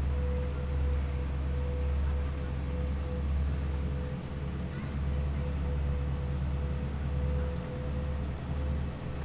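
Steady low mechanical hum of a running engine or machine, with a faint steady tone above it.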